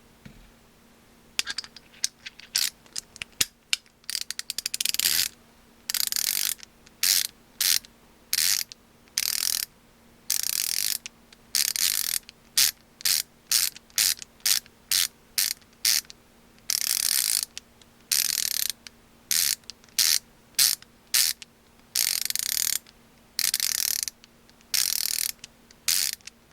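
KTC BR390 3/8-inch drive 90-tooth ratchet handle with a wedge-pawl mechanism, swung back and forth so it freewheels in a fast, fine high-pitched clicking. It starts with a few scattered clicks about a second in, then runs in repeated short strokes with brief pauses between them.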